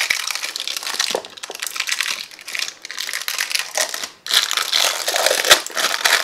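Clear plastic wrapper around a pack of modelling-clay sticks crinkling and crackling as it is handled and peeled open, getting louder a little after four seconds in.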